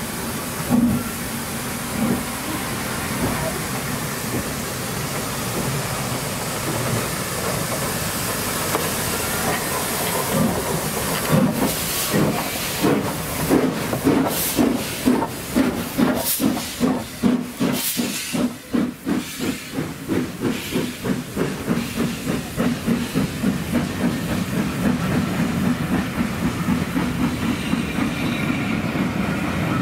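Steam locomotive hissing steam while standing, then starting away: about ten seconds in its exhaust beats start, and they quicken steadily as it gathers speed.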